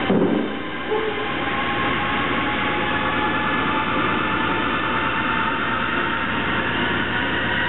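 Steady whooshing of a fan-resistance air bike being pedalled hard. Right at the start, a single thud as a pair of dumbbells is set down on a wooden plyo box.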